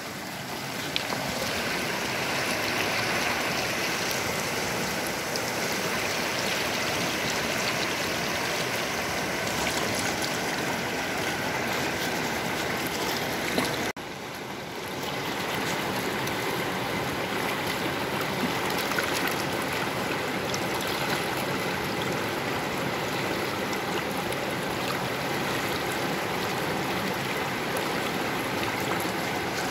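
Shallow rocky stream rushing and riffling over stones, a steady wash of running water. It breaks off for a moment about halfway through, then carries on as before.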